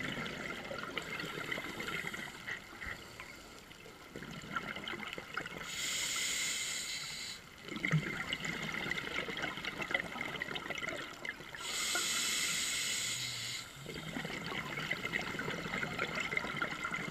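Scuba diver breathing through a regulator underwater: two hissing inhalations about six seconds apart, each followed by a longer rush of exhaled bubbles, with a fine crackle throughout.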